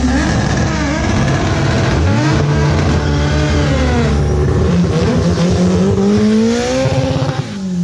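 Drag car's engine held at high revs during a burnout, its rear tyres spinning and smoking. The engine pitch climbs slowly from about two seconds in, then drops away near the end as the throttle comes off.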